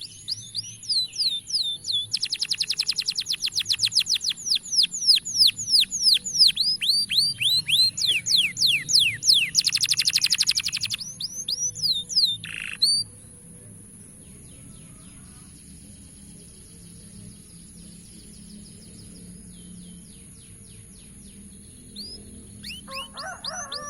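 Canary singing: fast runs of sweeping whistled notes, with a buzzy rattle about ten seconds in. The song is quieter through the middle and loud again near the end, over a steady high-pitched whine.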